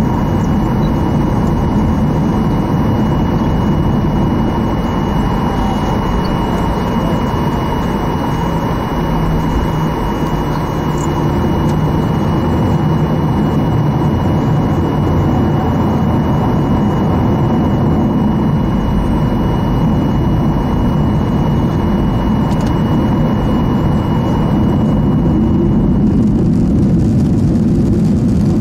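Cabin noise of a Boeing 737 moving on the ground, heard from a window seat over the wing: a steady jet-engine roar and rumble. A thin, steady high whine runs through it and stops about 26 seconds in, where the roar grows slightly louder.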